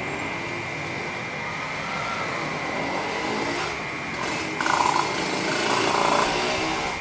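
City ambience: a steady high cicada drone over traffic noise. The noise grows louder with a shrill squeal about four and a half seconds in and again around six seconds.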